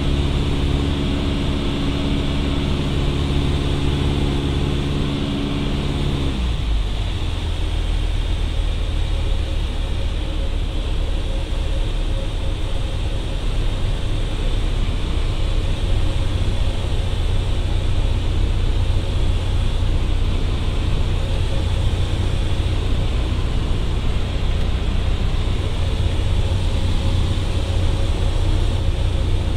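Cessna 152's four-cylinder Lycoming O-235 engine heard from inside the cockpit, running at power and then dropping to idle about six seconds in, leaving a low rumble and steady wind noise as the plane glides. The throttle is pulled to idle for a practice forced landing.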